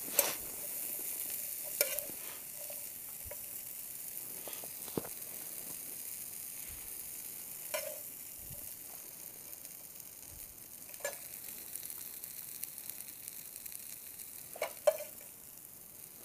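Stir-fried vegetables sizzling steadily in a hot non-stick frying pan, with a few sharp clinks of a metal spoon against the pan and plates as they are served out.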